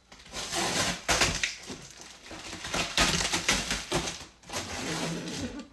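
Cardboard box and its packing being ripped open by hand: repeated tearing and crunching in irregular bursts, loudest about a second in and again about three seconds in.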